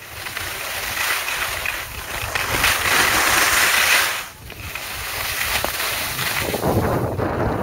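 Skis sliding and scraping over packed snow during a downhill run, with wind rushing over the microphone. The noise is loudest about three to four seconds in, drops away briefly, then comes back heavier and lower near the end.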